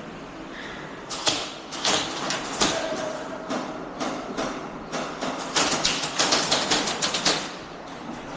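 Airsoft guns firing: a few single sharp cracks in the first three seconds, then a rapid string of about a dozen shots lasting about two seconds.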